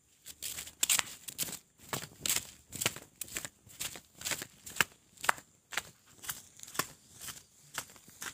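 Footsteps in sandals on a paved road, a steady walking pace of about two steps a second.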